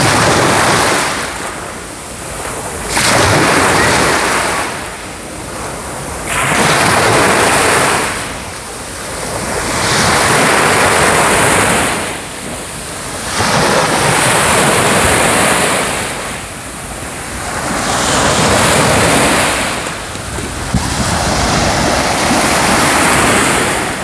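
Small waves breaking and washing up a sandy beach. Each surge of surf rushes in, swells and fades, one about every three to four seconds.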